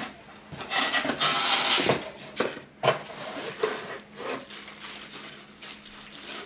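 Cardboard and packaging scraping and rustling as a glass wax warmer is pulled out of its shipping box, loudest from about one to two seconds in, followed by a few light knocks and softer rustling.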